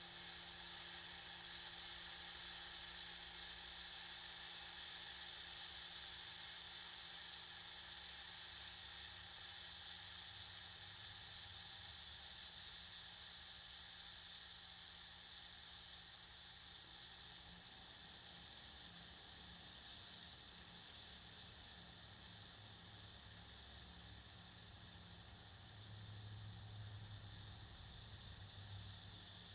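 Compressed air hissing out of a Sullair 10 hp rotary screw compressor. It is a steady high hiss that slowly fades over the half minute.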